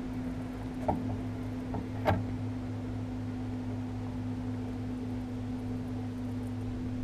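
Steady low hum of a boat motor, with two short knocks about a second and two seconds in.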